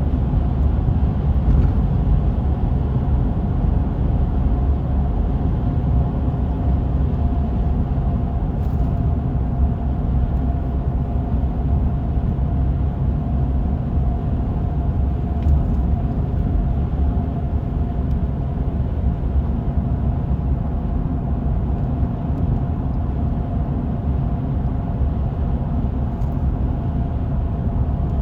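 Steady low rumble of a vehicle running, with a faint constant hum over it.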